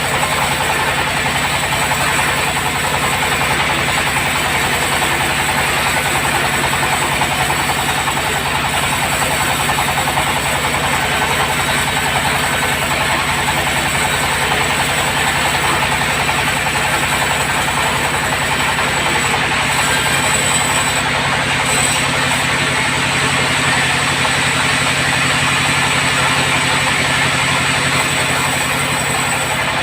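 Sawmill bandsaw running steadily while cutting hard acacia wood. It makes an unbroken mechanical hum with a dense, even hiss over it.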